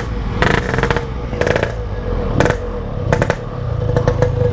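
Motorcycle engine running while riding, holding a steady note after a slight rise in pitch. Short bursts of rushing noise break in about once a second.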